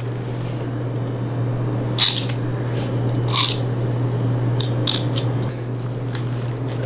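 Raw beef being worked by hand at a butcher's block: a few short tearing and scraping sounds as meat and membrane are pulled from the bone. A steady low hum runs underneath.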